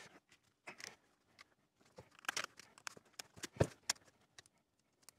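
Faint, scattered clicks and taps of a small nut spinner tightening nuts on an acrylic clock case while the case is handled, with one louder tap about three and a half seconds in.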